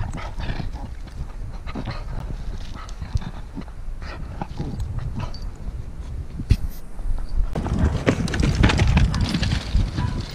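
A dog moving about and sniffing on loose stones close to the microphone, with scattered clicks of rock underfoot. A low rumbling noise grows louder about seven and a half seconds in.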